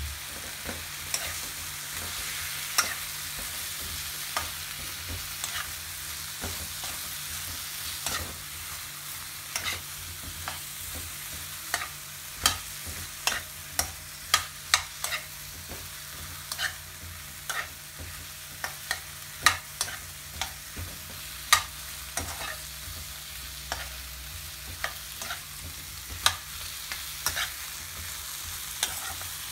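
Mushrooms frying in a wok with a steady sizzle, while a metal spatula stirs them, scraping and clicking against the pan at frequent, irregular intervals.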